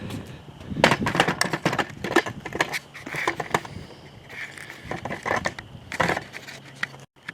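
Hand tools and metal parts clattering and knocking as they are handled: a dense run of knocks and rattles with a few short squeaks in the middle, cut off abruptly near the end.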